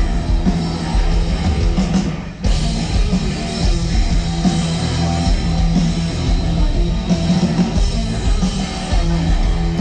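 Loud rock music with electric guitar and drums from a live rock concert, dipping briefly about two and a half seconds in.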